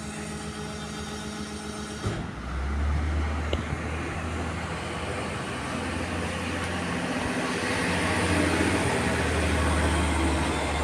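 Garbage truck running: a steady pitched hum, then about two seconds in a louder low drone takes over and slowly builds.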